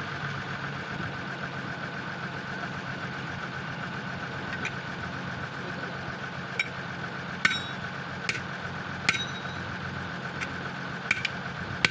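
About eight sharp metallic knocks, mostly in the second half: hammer blows on the steel rim of a truck wheel as the tyre is worked off it. A steady engine idling underneath.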